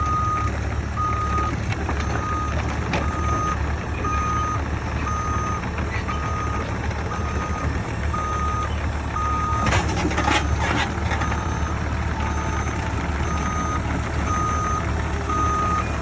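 Mini excavator's travel alarm beeping steadily about once a second over its running engine, the sign that the machine is moving on its tracks. A brief clatter of metal clanks about ten seconds in.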